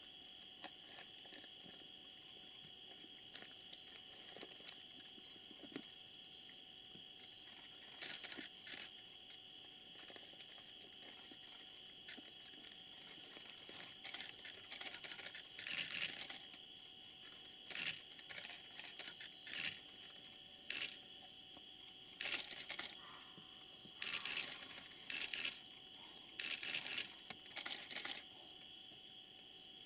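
Night insects' chorus: steady high-pitched tones on a few fixed pitches, broken briefly a few times near the end. From about halfway in, short crackling rustles like dry leaf litter come and go, several a second at times.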